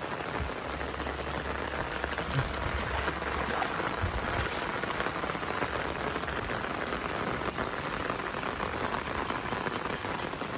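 Heavy rain falling steadily, an even hiss of rain on surfaces, with a low rumble in the first few seconds.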